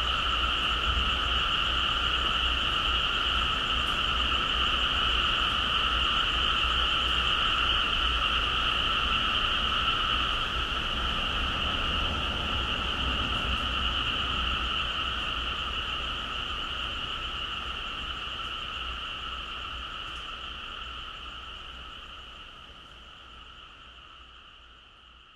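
A dense chorus of frogs calling, blended into one steady high trill, fading slowly away over the last ten seconds or so.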